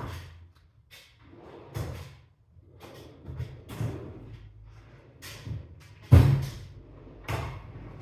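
Knocks and clattery thuds about a second apart, the loudest about six seconds in: tools and the brake master cylinder being handled and set down on a workbench during a rebuild.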